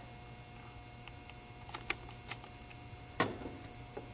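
A few light clicks, then one louder knock, from handling a multimeter and its test leads while testing the compressor, over a faint steady hum.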